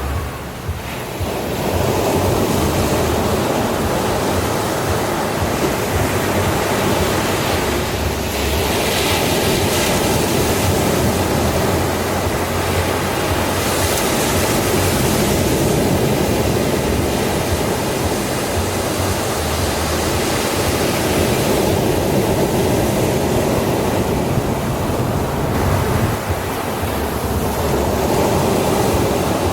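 Ocean surf breaking and washing onto a sandy shore: a continuous rush of waves, swelling brighter as a wave breaks about a third of the way in and again near the middle.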